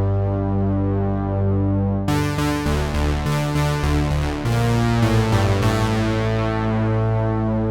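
GForce Oddity 3, a software emulation of the ARP Odyssey analog synthesizer, playing sustained bass and chord notes. The sound turns suddenly brighter about two seconds in and again near the middle as new notes start.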